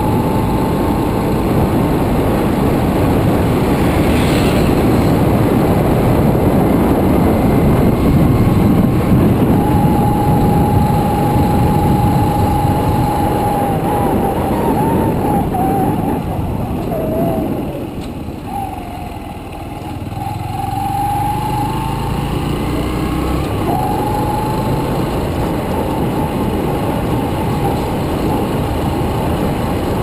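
Motorcycle engine running under way, with a steady wavering whine and wind rushing over the microphone. The motorcycle eases off about two-thirds of the way through, then picks up again.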